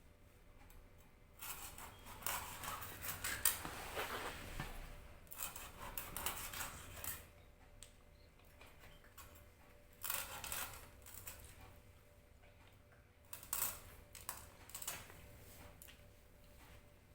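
Scraping and clinking of a blade and metal dishes as a whole hilsa fish is cut up and its pieces handled. The sound comes in three bouts: a long one starting about a second in, a short one around ten seconds, and another near the end.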